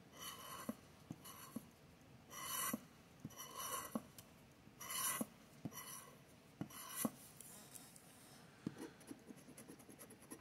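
Scratch-off ticket being scraped with a handheld scratcher tool: about six or seven short rasping strokes, each under a second, as the coating comes off, then fainter light scrapes and ticks near the end.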